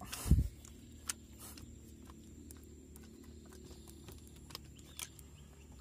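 A single loud, dull thump about a third of a second in, then faint scattered clicks over a quiet, steady low background.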